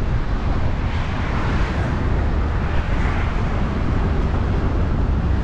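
Wind buffeting the microphone outdoors: a steady, uneven low rumble with a hiss above it.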